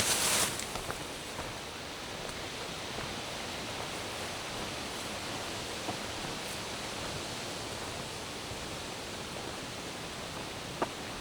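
Steady, even rushing hiss of outdoor forest ambience, with a brief rustle at the very start and a few faint ticks, one near the end.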